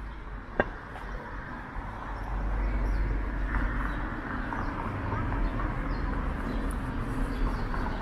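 Gusting wind buffeting the microphone as a low rumble that strengthens about two seconds in, over a haze of street noise. A brief sharp click sounds just over half a second in.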